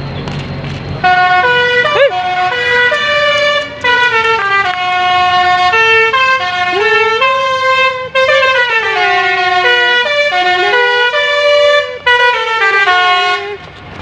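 Indonesian bus "telolet" musical horn playing a tune: a string of held notes stepping up and down in pitch, some sliding, starting about a second in and running for about twelve seconds.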